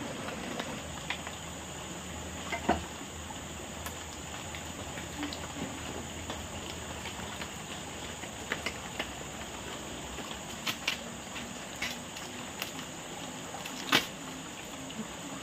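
Steady insect chorus with a constant high buzz, broken by scattered light knocks and clicks, the loudest about two and a half seconds in and again near the end.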